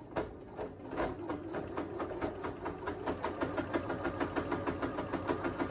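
Domestic electric sewing machine stitching around the edges of a fleece coat: a motor hum with an even rattle of needle strokes, slow for the first second, then fast and steady.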